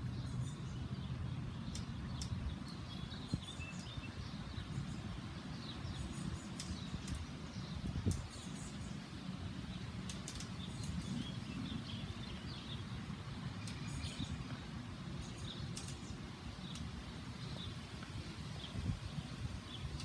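Small birds chirping in short, scattered calls over a steady low rumble, with a few sharp clicks.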